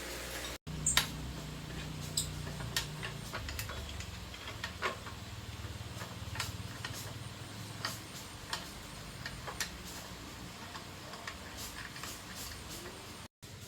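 Irregular light clicks and taps of metal tools and motorbike engine parts being handled and fitted, over a low steady hum.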